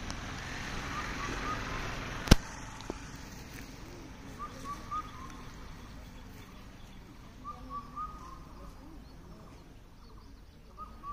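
A bird calling in short phrases of three or four quick chirps, repeated every three seconds or so. About two seconds in there is one sharp, loud click.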